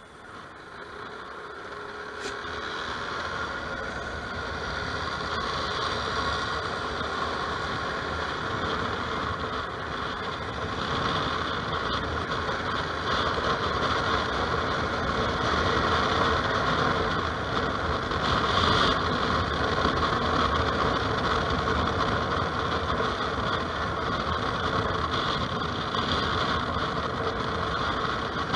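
Bumoto Regnum maxi-scooter running on the road, its engine and rushing road and wind noise building over the first few seconds as it speeds up, then holding steady.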